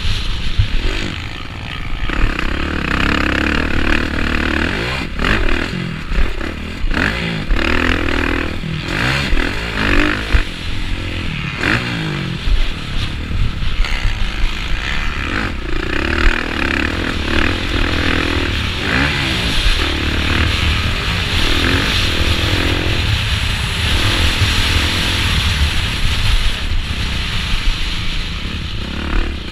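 Motocross bike's engine heard from a camera mounted on the bike, revving up and falling back again and again as it is ridden hard round the track, with rattling and knocks from the bike over the rough dirt.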